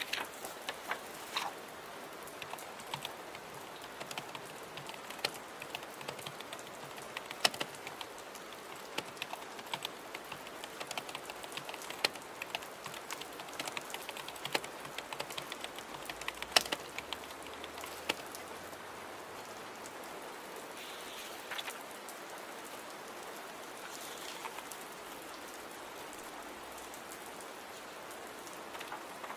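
Steady rain with keyboard typing: irregular key clicks for the first two-thirds or so, then only a few, leaving mostly the rain.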